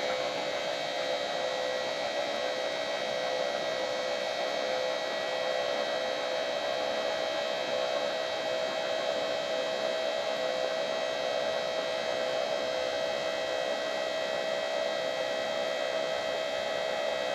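Lippert 12-volt electric trailer tongue jack running, its motor and gearbox giving a steady whining hum as it drives the jack post.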